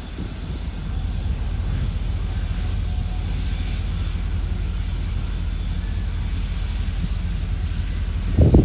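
Western Maryland Scenic Railroad 1309, a 2-6-6-2 articulated steam locomotive, running with a steady low rumble, and one loud thump near the end.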